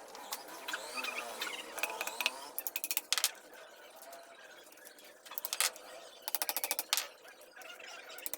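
Hand-tool work on a small electric motor's metal parts: squeaky scraping in the first couple of seconds, then sharp clicks and several short bursts of rapid clicking like a ratchet.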